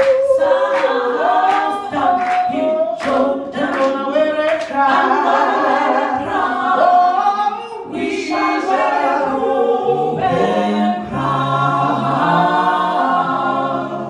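Women's a cappella group singing unaccompanied in several voice parts, with a low part joining about ten seconds in.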